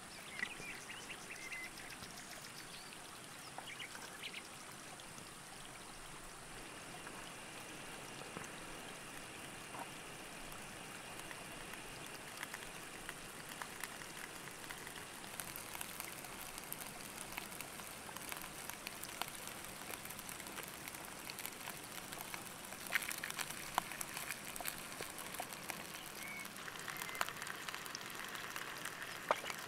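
Rice, vegetables and cooking oil frying in a pan: a steady sizzle with fine crackling pops, which grow denser and louder from about halfway, with a few sharper pops near the end.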